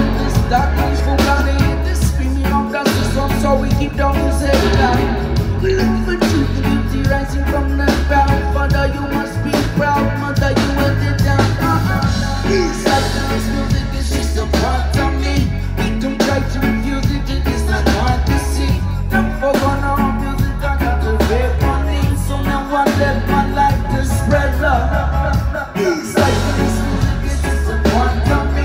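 Live reggae-rock band playing loud through a PA: drum kit, heavy pulsing bass guitar, electric guitar and keyboard.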